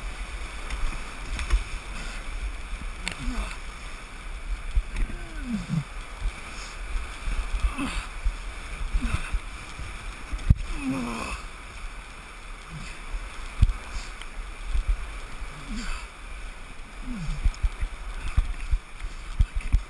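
Big whitewater rapid rushing and churning around an oar raft, with water sloshing and splashing against the boat. Frequent sharp low thumps run through it.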